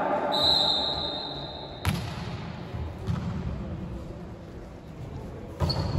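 Volleyball rally in a large indoor hall: the ball is struck sharply about two seconds in and again near the end, over a steady low hall rumble. Before the first hit, a high thin tone holds for about a second and a half.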